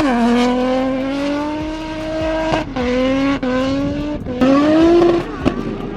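A drift car's engine held at high revs on track, its pitch dropping sharply about two and a half seconds in and again just after four seconds, then climbing back up each time.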